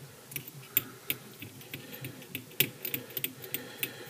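Irregular sharp clicks and ticks, several a second, from fly-tying thread being wrapped and pulled tight around a hook held in a vise, tying in bucktail.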